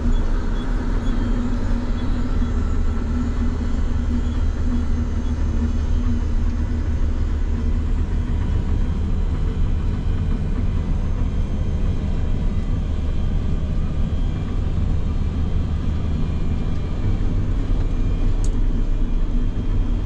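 Nexat tracked implement carrier running while seeding: a steady low machine rumble, with a hum that is strongest in the first several seconds and then eases.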